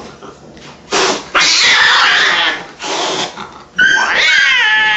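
Angry domestic cat hissing in three bursts, then breaking into a loud, wavering yowl just before the end.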